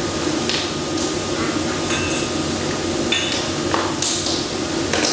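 Wooden toy kitchen pieces knocking and clattering together: several sharp knocks scattered irregularly, a second or so apart.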